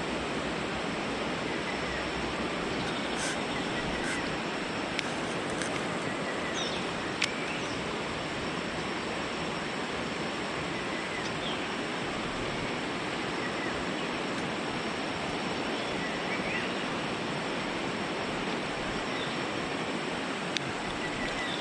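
Steady rush of stream water running over rocks, with a few faint chirps and a few brief clicks.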